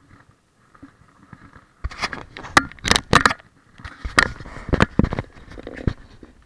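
Handling noise from a hand rubbing and knocking against the camera and its microphone: loud irregular scrapes and clicks beginning about two seconds in.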